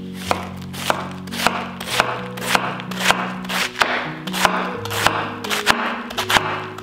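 Kitchen knife chopping vegetables on a cutting board, a steady rhythm of about two cuts a second, over background music.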